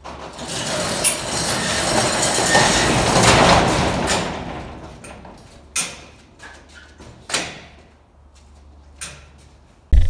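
Corrugated steel roll-up door being lowered by its hand chain: a steady rattling rumble that builds, peaks about three and a half seconds in and dies away by about five seconds. Three separate clanks follow.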